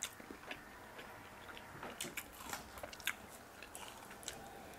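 Faint eating sounds: scattered crunches and small clicks of biting into and chewing crispy fried pork, a few stronger crunches about two to three seconds in.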